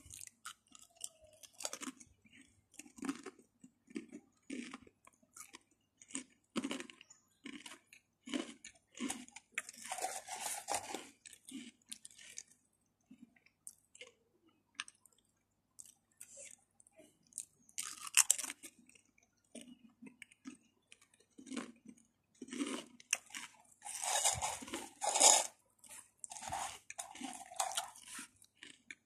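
A person chewing and crunching crisps, a string of irregular close crackly crunches, with a few longer, louder noisy spells mixed in.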